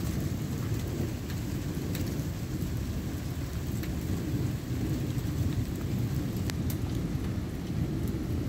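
Rain falling in a thunderstorm, with a steady low rumble of thunder under the hiss of the rain. A few sharp ticks of drops land close by, the strongest about six and a half seconds in.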